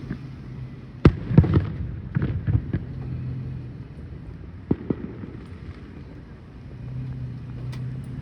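Fireworks bursting: a sharp bang about a second in and another just after, a cluster of smaller pops around two to three seconds in, and one more bang near five seconds, over a steady low hum.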